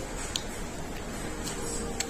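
Plastic-gloved hands pulling apart grilled chicken on a plate, giving soft squishing with a few small clicks over a steady low room hum.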